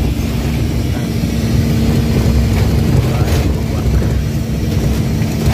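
Vehicle driving down a dirt road: a steady engine hum over low rumble and wind noise.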